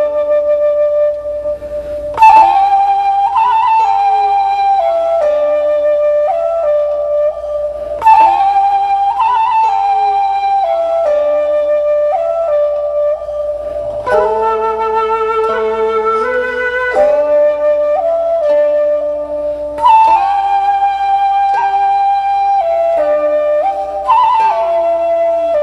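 Background music led by a flute melody of held, gliding notes, with a new phrase starting about every six seconds.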